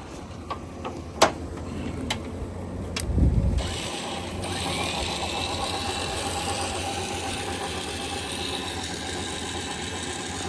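A few sharp clicks, then a vehicle engine starts about three seconds in and settles into a steady idle.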